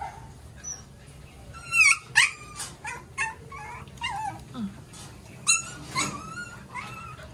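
Three-week-old Aspin puppies whining and yelping in a run of short, high, sliding cries, loudest about two seconds in and again around five and a half seconds.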